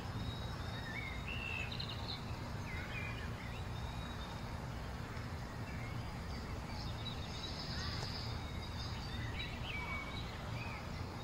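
Outdoor nature ambience: a steady low rumble of background noise with scattered short bird chirps and tweets.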